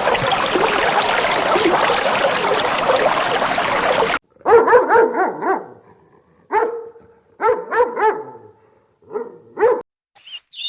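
A steady rushing noise that cuts off abruptly about four seconds in, then a dog barking in several short groups of barks.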